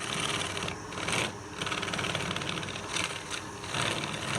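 Wood lathe running steadily, with a high hiss that drops out briefly a few times.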